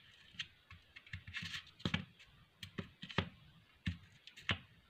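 Faint, irregular light clicks and taps with a brief rustle, from hands handling a small homemade fidget toy.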